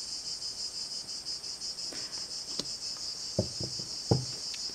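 Crickets chirping steadily in a high-pitched, fast-pulsing trill, with a few soft knocks in the second half.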